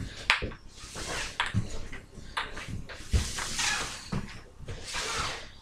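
Wooden kendama being played: the ball knocks sharply against the cup and handle a handful of times, about a second apart, with rustling between.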